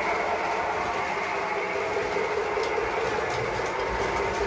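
Lionel O-gauge model train of boxcars rolling past on three-rail tinplate track: a steady rumble of metal wheels on the rails, with a few faint clicks.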